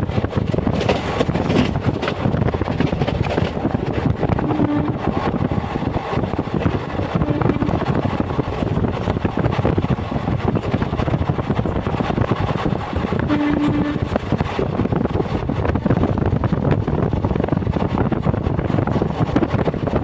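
Train running, a steady, unbroken noise.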